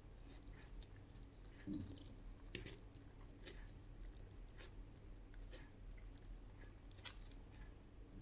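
Faint close-up chewing of a mouthful of fried fish and rice, with scattered soft clicks at irregular intervals.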